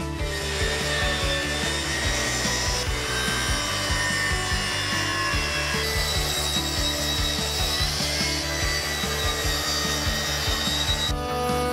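Festool plunge-cut track saw cutting through a wooden board along its guide rail, the blade giving a high whine over the noise of the cut.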